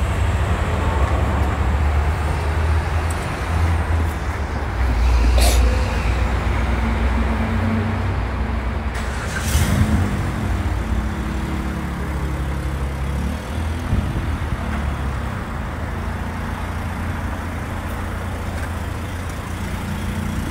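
A car being refuelled at a gas pump: fuel runs through the nozzle into the tank over a steady rumble of traffic and vehicles. There are two short hisses, about five and nine seconds in, and a vehicle engine wavers in pitch around the middle.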